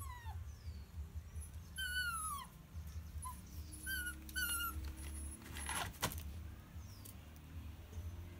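Mixed-breed puppy whimpering: a few short, high whines that fall in pitch. A sharp knock comes about six seconds in.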